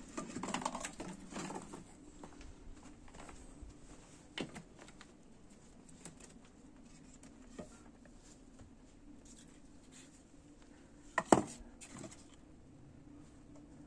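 Dry wooden firewood sticks clattering as they are gathered from a pile, then a few single knocks as sticks are set down in the ashes of a hearth, the loudest a sharp double knock near the end.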